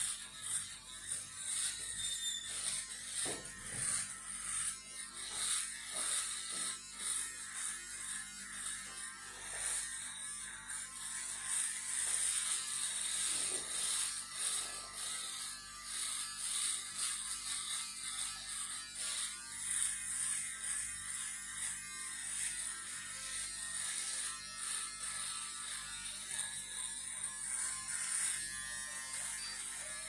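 Electric foil shaver buzzing steadily as it is pressed and moved over beard stubble on the jaw and neck. Its sound rises and falls unevenly as it cuts the hairs.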